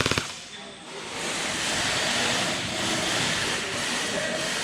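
The last shots of a full-auto gel blaster burst, a rapid string of clicks, then a steady hiss from about a second in.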